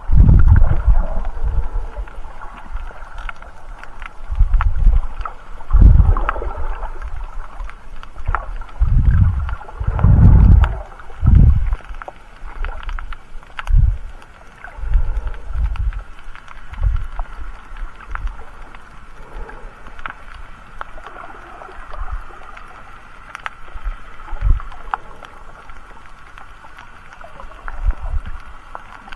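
Muffled underwater sound from a submerged camera while snorkelling: irregular low surges and thumps of water moving around the camera as the swimmer moves, strongest in a cluster about nine to twelve seconds in, with faint scattered clicks.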